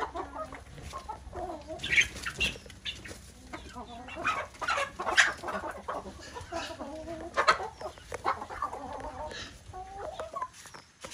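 A flock of chickens, hens and roosters, clucking with many short, irregular calls while they feed, the loudest about two and five seconds in.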